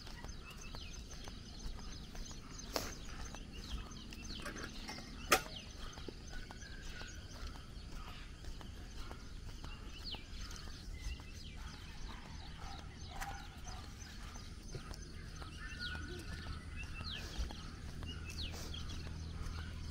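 Small birds chirping in roadside trees and shrubs, short high chirps throughout, over footsteps on paving stones. A low hum of road traffic grows near the end.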